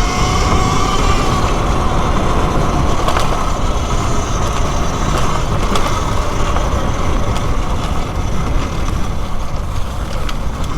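Talaria Sting R electric dirt bike riding over rough ground: the steady whine of its electric motor over a low rumble, with the loose battery rattling in its bay as sharp clicks now and then. The rattle is the sign that the stock rubber blocks do not hold the battery firmly.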